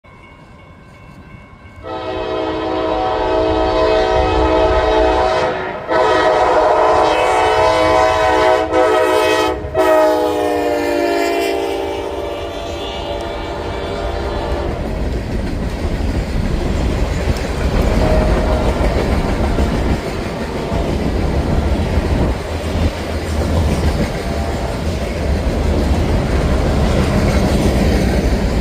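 CSX freight train's locomotive horn sounding a few long blasts, its chord dropping in pitch near the end of the last blast as the locomotive goes by. After that comes the steady rumble and clatter of the cars rolling past.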